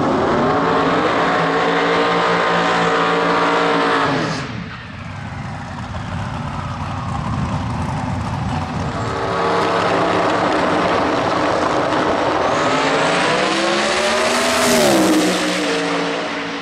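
Twin-turbo Holden Commodore drag car's engine held at high revs during a smoky burnout, cutting off sharply about four seconds in. After a quieter stretch it launches, and the engine note climbs in pitch through the pass, then falls away near the end.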